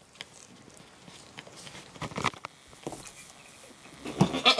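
Goat kid sucking milk from a bottle's rubber teat, with faint wet sucking noises and small clicks. A short, louder pitched sound comes near the end.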